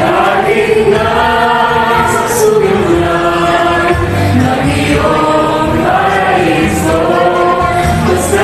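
A mixed group of children and adults singing a song together as a choir, in sustained held notes that move from pitch to pitch about once a second.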